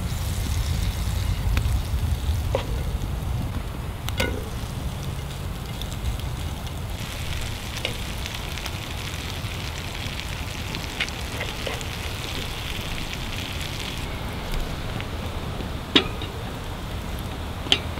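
A cornmeal and sunflower-seed cake frying in oil over an open fire: a steady sizzle, strongest in the middle stretch, over a low rumble, with a few sharp clicks scattered through it.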